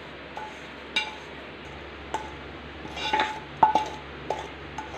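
A metal kadai being tapped and scraped with a wooden spatula to knock roasted vermicelli and nuts into a pot of milk: about ten light clinks, each with a short metallic ring, several bunched together in the second half.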